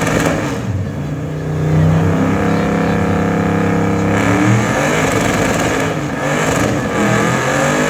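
Car engine held at high revs during a stationary burnout, spinning the tyres to make heavy smoke. It runs steady for about three seconds, then is revved up and down.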